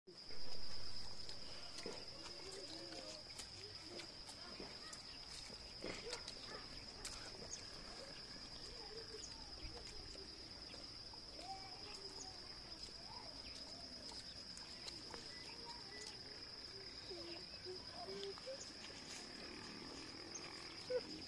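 Crickets trilling steadily, one continuous high-pitched pulsing tone, with faint scattered chirps and clicks around it. A louder sound swells just after the start and fades over a second or so.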